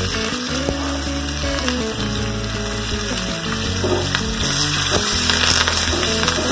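Green chillies and curry leaves sizzling steadily in hot oil in a nonstick frying pan, stirred with a wooden spatula.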